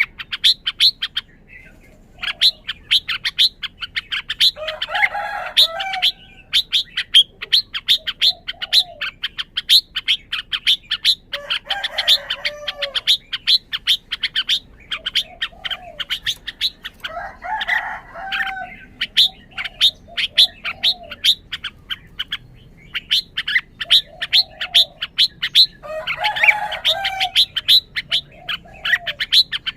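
Red-whiskered bulbul calling: a fast run of short sharp chirps, about four a second, broken four times by a fuller warbling song phrase.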